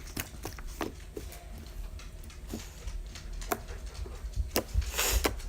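Sticky glue-based slime, freshly given more contact-solution activator, being worked by hand or spoon, making scattered soft clicks and squelches, with a louder wet swish near the end.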